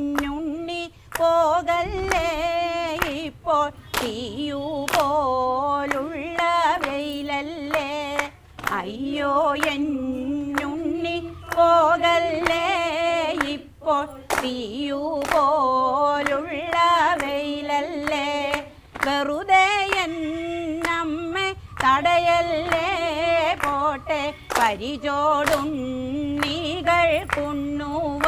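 Group of women singing a Malayalam Kaikottikali (clapping-dance) song, with no instruments heard, and clapping their hands in time with the melody.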